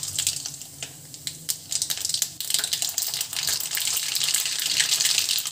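Mustard seeds and split urad dal sizzling in hot oil in a kadai, the mustard seeds crackling and popping as they splutter. The crackle grows louder and denser from about two seconds in.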